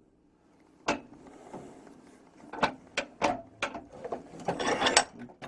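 Hammer striking a centre punch against the threads of a small steel clamping bolt, staking it so it will not unscrew: about five sharp metallic taps spaced out over a few seconds, then a quicker, rougher run of knocks near the end.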